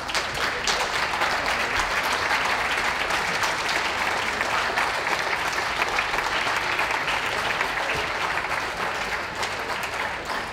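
Audience applauding: dense, steady clapping from many hands that begins to fade near the end.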